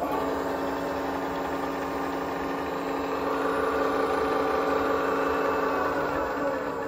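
Aciera F3 milling machine's spindle motor, run through a variable-frequency drive, starting as the green button is pressed and then running with a steady hum and whine. Near the end its pitch starts to fall as the spindle slows down.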